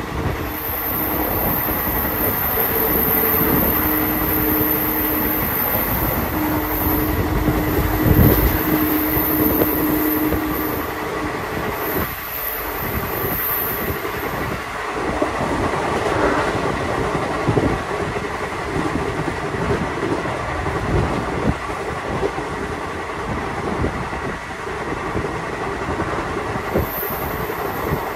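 Passenger train running along the track, heard from on board: a steady rumble of wheels with clickety-clack over rail joints. A steady whine is heard for the first ten seconds or so, and there is one heavy thump about eight seconds in.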